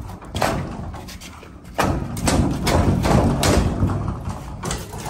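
Footsteps on a concrete floor with irregular knocks and clatter, busiest from about two seconds in until near the end.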